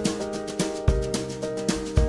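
Background music made from GarageBand loops: a steady drum beat with a deep kick about once a second under sustained chords.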